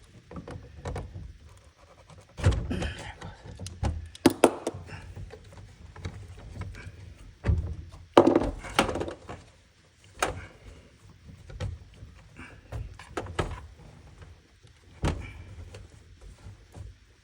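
Irregular knocks, clicks and rattles of pliers and plastic parts being handled while working on a dishwasher's water fill valve, the loudest thunks coming in clusters about two and a half, four and eight seconds in.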